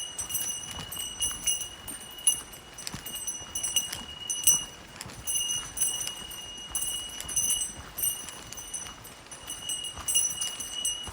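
A bear bell carried by a walker jingling in time with their footsteps on the trail, each step renewing its ringing, about once or twice a second.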